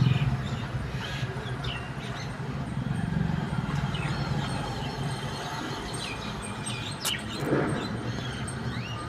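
Mynas calling with many short, scattered chirps and squawks over a steady low rumble, with a sharp click about seven seconds in.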